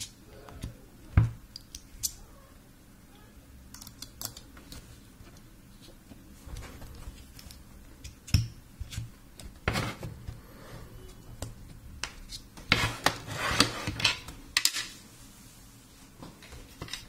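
Hard plastic case and small steel bits of a precision screwdriver kit being handled: scattered clicks and taps, then a run of clattering about three-quarters through.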